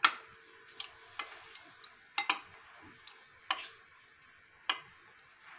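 Metal spoon clinking against a glass bowl while stirring yogurt into milk: a handful of light, irregular clicks a second or so apart.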